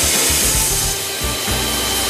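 Steady mechanical scrubbing noise with a strong hiss and a faint high whine, typical of an air-conditioner cleaning robot at work.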